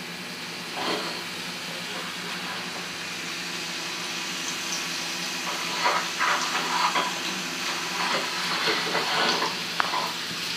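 Tortilla chips frying in hot grease: a steady sizzle, with more crackling spurts from about six seconds in.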